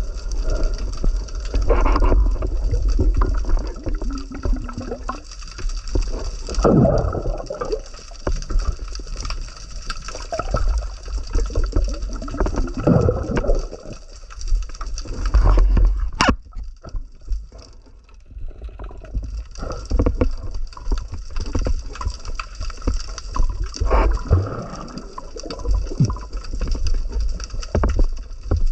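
Muffled underwater water noise heard through a camera housing: a low rumble with gurgling washes of moving water that swell every few seconds. There is one sharp click about sixteen seconds in.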